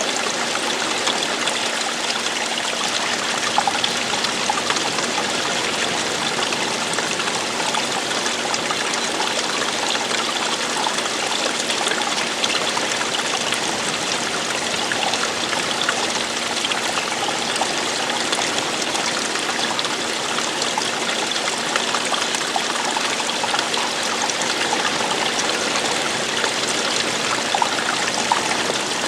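Water running and splashing steadily over rocks, a continuous babbling stream or small cascade.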